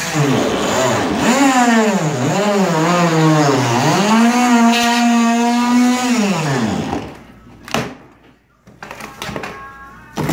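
Handheld power tool cutting into drywall just above a countertop. Its motor pitch dips and rises with the load, holds steady, then winds down and stops about seven seconds in. A few knocks and taps follow as the cut drywall is worked loose.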